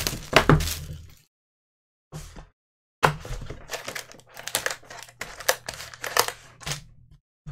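Trading-card packs and their cardboard hobby box handled by hands in nitrile gloves: the packs being lifted out of the opened box, with crinkling and rustling in short irregular bursts and a pause of about a second near the start.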